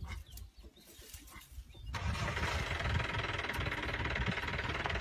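A vehicle engine starts about two seconds in and keeps running with a low, uneven rumble.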